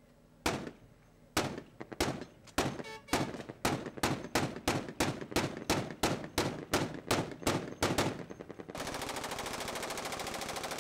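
Gunfire: separate shots at first, roughly every half second, quickening to about three a second, then near the end a long unbroken burst of rapid automatic fire.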